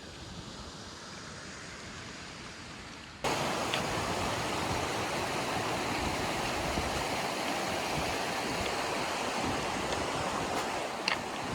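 Steady rush of a mountain stream or waterfall. About three seconds in it jumps abruptly to a louder, fuller rush and then holds steady.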